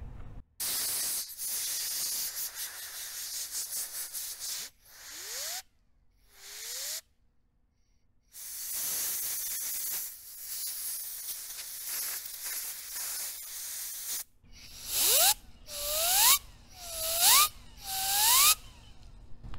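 A compressed-air blow gun hisses in long blasts through a small CPU cooler fan. Near the end come about four short puffs, and with each one the fan's whine rises in pitch as it spins up. The fan spins freely, a sign of a good fan bearing.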